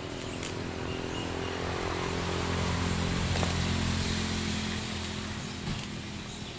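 A motor vehicle's engine passing, growing louder to a peak about three to four seconds in and then fading.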